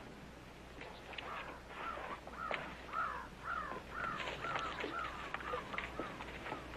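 A bird calling a string of about nine harsh caws, roughly two a second, each rising then falling in pitch, with a few faint clicks of hooves or footsteps on rocky ground.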